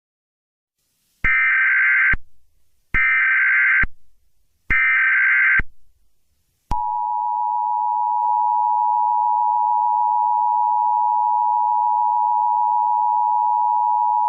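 Emergency Alert System tones: three short bursts of the SAME header's data tones, each just under a second, followed from about seven seconds in by the steady two-tone attention signal. Together they mark the start of an emergency alert broadcast.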